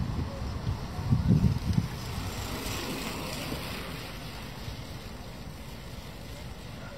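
Wind buffeting the microphone, in heavy low gusts over the first two seconds, then settling into a softer steady rush of outdoor wind.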